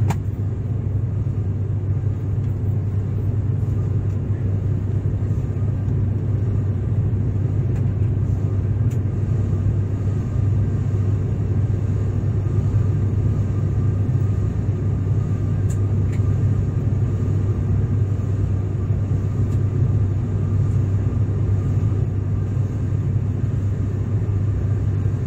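Steady drone of an airliner in flight heard inside the passenger cabin: engine and airflow noise, a dense low rumble that holds even throughout.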